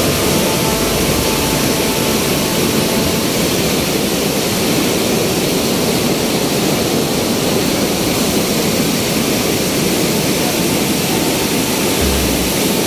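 River in high flow rushing through barrage gates: a loud, steady roar of churning water.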